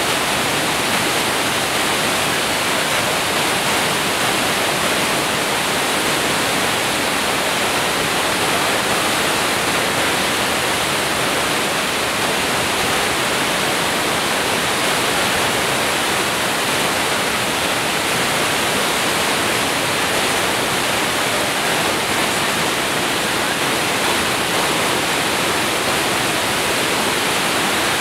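FlowRider surf machine running: a steady, even rush of a thin sheet of pumped water flowing fast up its ramp.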